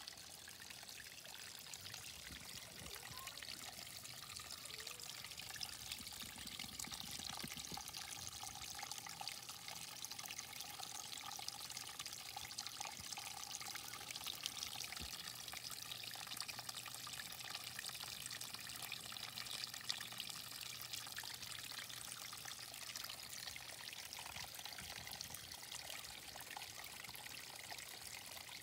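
Water trickling steadily into a garden pond.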